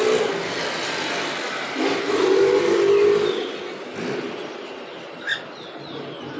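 A motor vehicle's engine running, swelling about two seconds in and then fading away.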